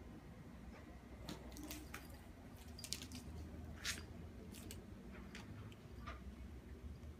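Faint clicks and scuffs of a cat's claws and paws on a hard tile floor as it pounces and rolls, over a low steady room hum. The sharpest clicks come about three and four seconds in.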